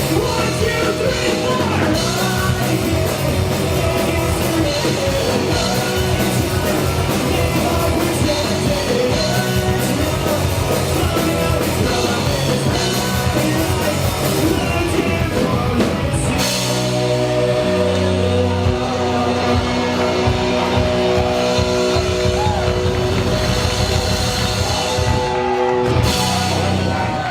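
Live punk rock band playing loud, with guitars, drums and singing. About sixteen seconds in, the playing shifts to long held chords under continuing drums.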